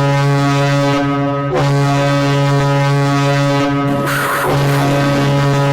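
Ice hockey goal horn blaring in long blasts of one steady low tone rich in overtones, with short breaks about a second and a half in and about four seconds in.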